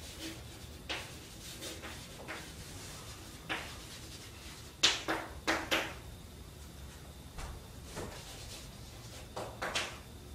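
Chalk writing on a chalkboard: clusters of short, sharp scratchy strokes and taps, the loudest run about five seconds in and another near the end.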